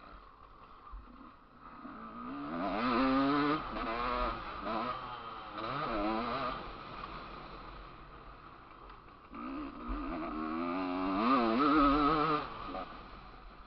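Dirt bike engine heard from onboard on a motocross track, revving hard in two bursts, a few seconds in and again near the end, its pitch wavering rapidly up and down, with quieter running between.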